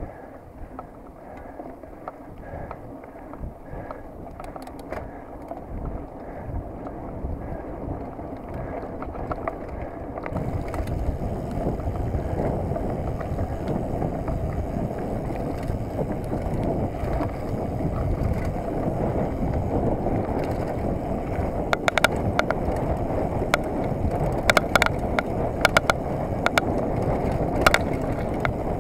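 Mountain bike riding fast along a dirt forest singletrack, heard from an onboard camera: a steady rush and rumble of tyres and air that grows louder about a third of the way in as speed builds, with sharp rattles and knocks from the bike in the last part.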